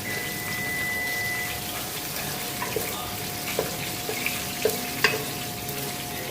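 Onions, green peppers, garlic and ham sizzling steadily in oil in a pot while being stirred, with a few light clicks of the spoon against the pot.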